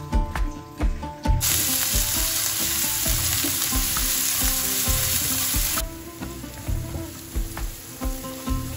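Ground spice paste of candlenut, shallot, garlic and red chilli sizzling in hot oil in a frying pan as it is stirred. The sizzle starts loud about a second and a half in and drops to a softer sizzle a little past the middle. Background music with a steady beat plays underneath.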